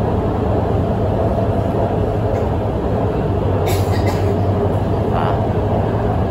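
Guangzhou Metro Line 7 train running between stations, heard from inside the car: a steady rumble of wheels on rail with a low drone, and a couple of brief clicks about four seconds in.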